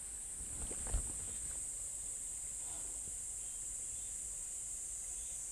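Steady high-pitched chorus of singing insects, with a couple of soft knocks about a second in.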